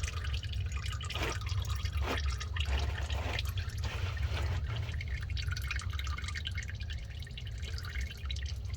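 Warm engine oil dripping and trickling from a partly loosened spin-on oil filter on a Ford Explorer 4.0 V6, a few heavier drips in the first few seconds. The filter has been backed off a little at a time so the oil drains slowly before removal. A steady low hum runs underneath.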